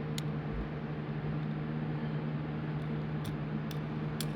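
Steady low machine hum with a few faint, sharp clicks scattered through it.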